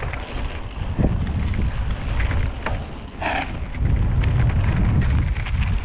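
Wind buffeting a helmet-mounted microphone and the rumble of mountain bike tyres on a gravel forest trail, with scattered rattling clicks from the bike. A short squeak comes about three seconds in.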